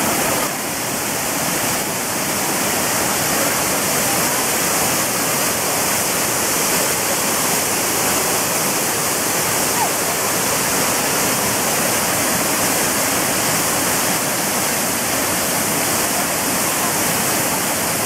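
Waterfall pouring onto boulders into a pool of churning white water: a steady, unbroken rush of water.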